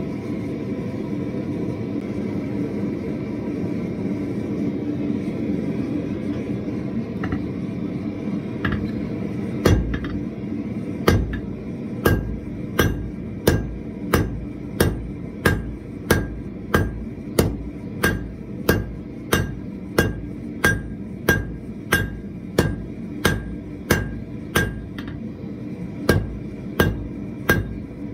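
Blacksmith's hammer striking hot iron on an anvil in a steady rhythm, about three blows every two seconds, each with a short metallic ring, starting about ten seconds in. Before the hammering there is only the steady rush of the gas forge's burner.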